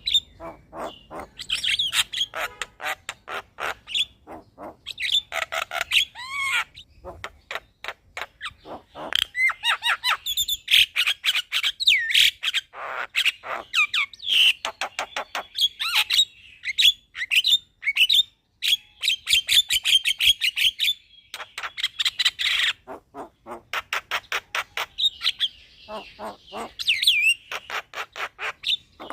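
Javan myna (jalak kebo) singing a long rolling song: fast clicking rattles mixed with whistled glides and harsh squawks, in run after run with only short breaks.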